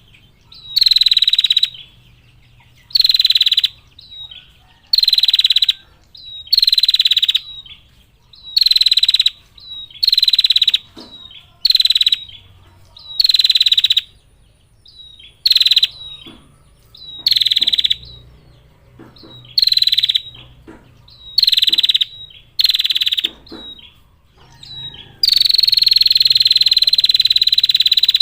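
Female prenjak (prinia) giving its rapid, clear trilling call ('ngetir'), repeated as short bursts about once a second, then one long trill of about three seconds near the end. A call like this is played to draw out male prenjak.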